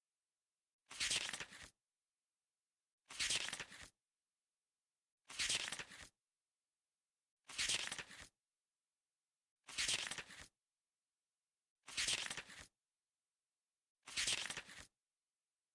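A short hissing sound effect repeated seven times at an even pace, about once every 2.2 seconds, with dead digital silence between: a slideshow's photo-transition effect.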